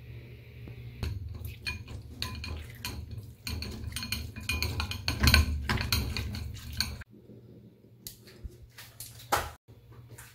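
Metal spoon scraping and clinking against a wire-mesh strainer and ceramic bowl while pressing crumbled tofu, a quick run of clinks and scrapes that stops abruptly about seven seconds in, followed by a few separate knocks.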